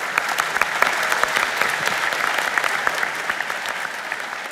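Audience applauding, many hands clapping at once. It starts sharply and slowly thins out toward the end.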